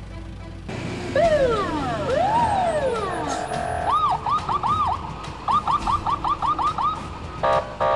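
Emergency-vehicle siren: a few slow sweeps down and up, then a fast warbling yelp of about five rises and falls a second, with a short honk-like blast near the end.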